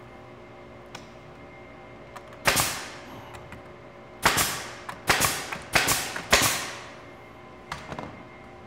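Pneumatic brad nailer firing 5/8-inch brads through a thin lauan plywood block into a pine stretcher frame: one sharp shot, then four more in quick succession about two-thirds of a second apart, with a few light clicks of the tool being set down and repositioned.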